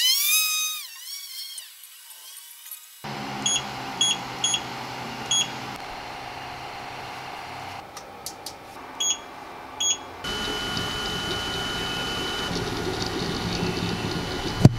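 Creality Ender-5 S1 3D printer: the motors first whine up and down in pitch. Then come a few short high beeps and clicks as the memory card is pushed into its slot. From about ten seconds in the printer runs steadily, its motors and fans whining with a mechanical clatter.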